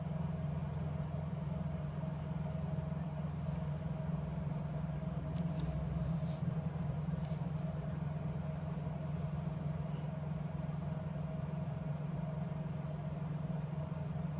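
Steady low mechanical hum with a few faint clicks in the middle.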